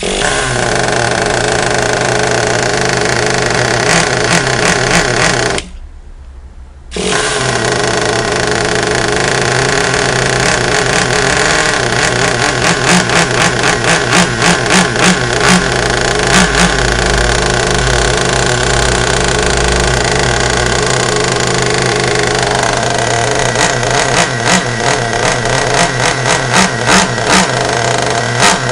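Traxxas Nitro 4-Tec's two-stroke nitro glow engine running on its first start. It cuts out for about a second about six seconds in, then runs again, and later is revved in quick repeated blips.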